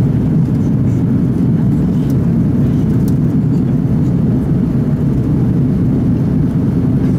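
Airbus A330 cabin noise heard from a window seat over the wing on approach: a steady, unbroken low rumble of the airliner's engines and airflow.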